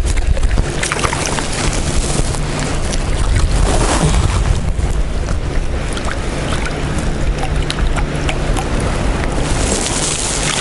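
Wind buffeting the microphone: a steady rushing noise heavy in the low end, with small faint clicks scattered through it.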